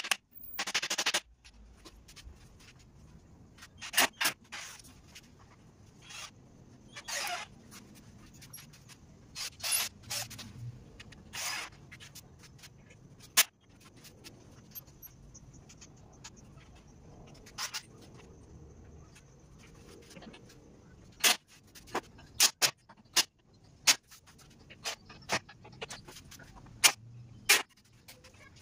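Scattered sharp knocks and clacks of wooden boards and hand tools being handled and set down, with a few short scraping sounds in the first half and a quick run of knocks near the end.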